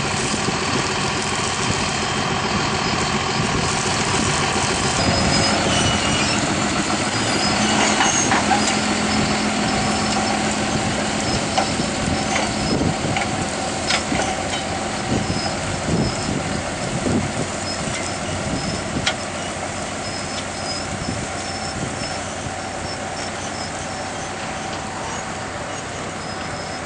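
Tractor engine running steadily under load while pulling a mounted reversible plough through dry stubble, with a few sharp knocks partway through.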